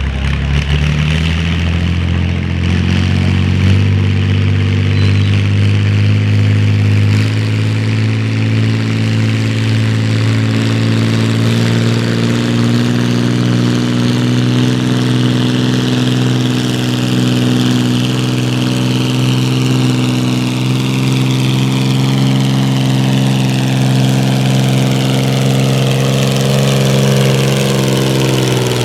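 Farm tractor engine under full load pulling the sled: it revs up over the first few seconds, holds a steady high pitch down the track, then drops off near the end as the run finishes.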